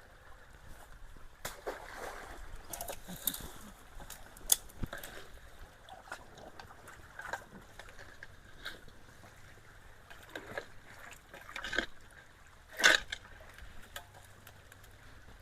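Water trickling and sloshing at a partly clogged culvert, with irregular splashes and knocks as stuck debris is worked at; the loudest splash comes about 13 seconds in.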